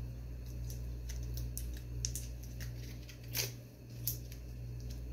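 Foil wrapper of a small butter portion crinkling and crackling in irregular clicks as it is peeled open by hand, over a steady low hum.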